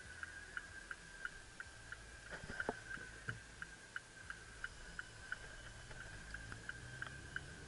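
Faint low rumble of a car's engine and road noise heard from inside the cabin, with a high, thin tone ticking steadily about three times a second.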